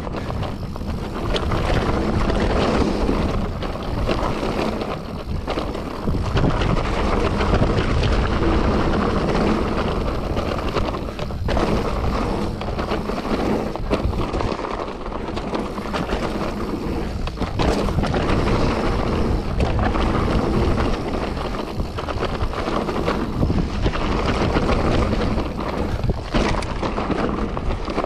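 Mountain bike riding along a wet trail: steady rush of tyres and wind on the microphone, with frequent knocks and rattles from the bike over rough ground.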